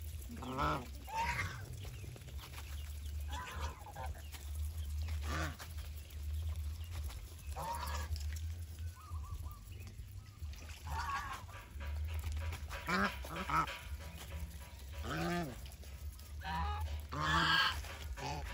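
Domestic geese honking on and off, with several calls in quick succession and the loudest ones in the last few seconds, over a steady low hum.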